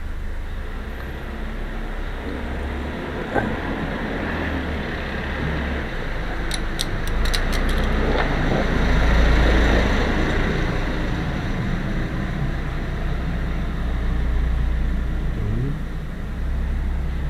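Motor vehicle running with a steady low hum, swelling louder about nine seconds in, with a quick run of sharp clicks around seven seconds in.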